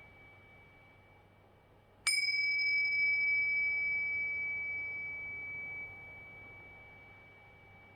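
Tibetan tingsha cymbals struck together once about two seconds in, giving a bright, clear high ring that dies away slowly over several seconds. The ring of an earlier strike is still fading at the start.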